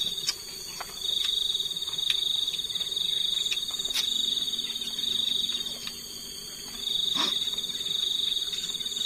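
Cricket trilling at a high pitch in long trills broken by pauses of about a second, with a few faint clicks.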